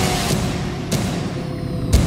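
Electronic bass-music track, still in its intro: a dense low rumble with two sharp percussive hits about a second apart.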